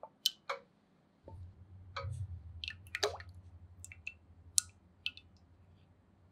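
Cloudy liquid poured from a glass bowl into water in a stainless steel saucepan. A steady pouring stream starts about a second in, with sharp drips and splashes through it.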